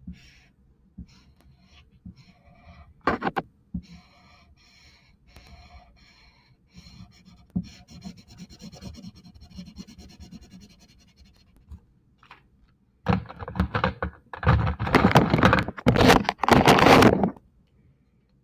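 Highlighter marker rubbed back and forth on paper to color in a shape, a series of faint squeaky strokes. About 13 seconds in, much louder scratching and rubbing runs for about four seconds and stops abruptly.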